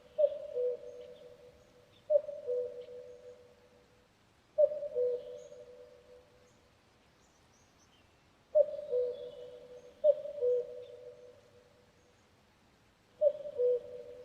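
Common cuckoo calling its two-note "cuck-oo", a higher note falling to a lower one, six times at uneven intervals. Faint high chirps of other small birds sound in the background.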